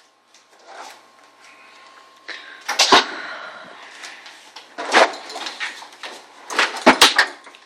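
Sharp knocks and clatter of things being moved and handled around the refrigerator, with a scraping stretch after about two seconds and a quick double knock near the end.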